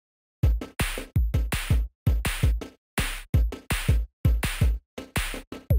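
Electronic drum-machine beat starting about half a second in: deep kick drums that drop in pitch, alternating with sharp snare or clap hits, several hits a second.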